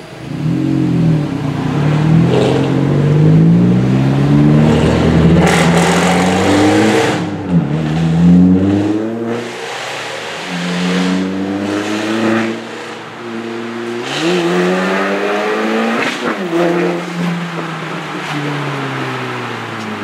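Car engine accelerating hard, its pitch rising through the revs and dropping back at each gear change several times, heard from inside the car's cabin.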